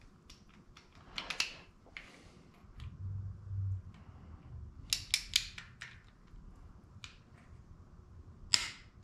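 A click-type torque wrench clicking as camshaft retainer plate bolts on an LS engine block are tightened to 18 foot-pounds. A few sharp clicks come about a second in, a quick cluster around five seconds, and the loudest single click near the end.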